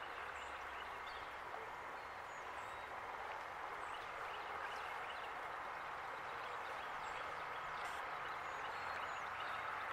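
Steady rush of flowing river water, with a few faint high bird chirps now and then.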